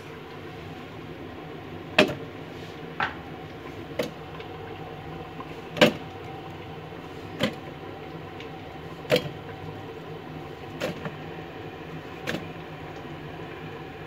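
Onion halves dropped one at a time into a Thermomix's stainless-steel mixing bowl: about eight separate knocks, a second or two apart, over a steady low hum.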